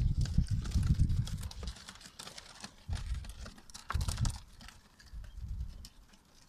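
Pigeons pecking seeds off snowy ground: a patter of quick, light clicks, thickest in the first four seconds, over low rumbling bursts.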